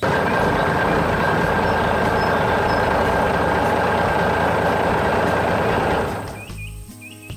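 Heavy truck engine running steadily, loud from the first moment, with a fast low rumble and a faint high whine; it fades out about six seconds in.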